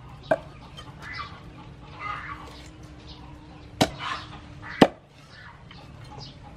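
Meat cleaver chopping raw chicken on a wooden chopping board: three sharp strikes, one just after the start and two about a second apart near the middle, the last the loudest. Birds chirp in between.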